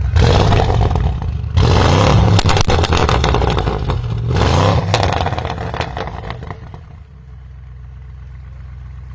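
Audi RS6 Avant C8's twin-turbo V8, with a Capristo exhaust and the particulate filter deleted, revved hard three times. Sharp crackles and pops come as the revs fall after the second and third blips. It settles back to a steady idle about seven seconds in.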